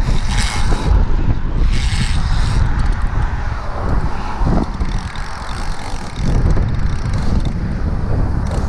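Wind buffeting the microphone over a steady rumble of car traffic on the adjacent highway bridge.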